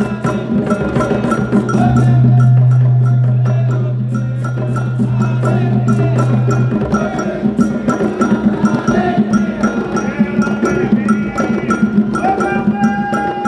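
Afro-Brazilian Candomblé drumming: hand drums and a struck bell or wood block play a fast, steady rhythm, with voices singing a chant over it.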